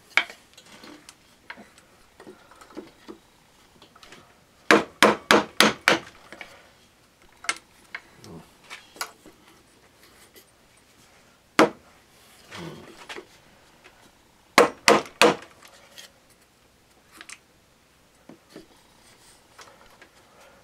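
Hammer striking a wooden stick braced against the flywheel of a 2 hp Briggs & Stratton Golden Boy engine, to shock the flywheel loose from the crankshaft. The blows come in quick runs of four to six, with single knocks between.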